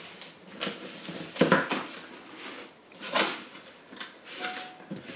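Cardboard shipping box being opened by hand: the flaps pulled apart and folded back, with rustling and a couple of sharper cardboard scrapes.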